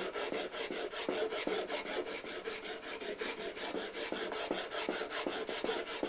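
Hand file rasping across hardened two-part epoxy putty in quick, even back-and-forth strokes, several a second, shaping a repaired steering wheel.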